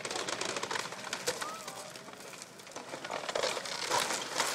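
Old wood-frame house creaking and cracking as an excavator pushes it over, with scattered snaps that grow louder toward the end as the structure gives way.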